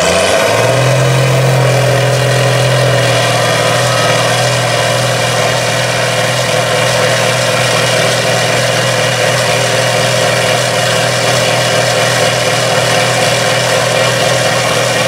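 Mega mud truck's diesel engine held at high revs under heavy pulling load, a loud steady drone that barely changes pitch, pouring black smoke.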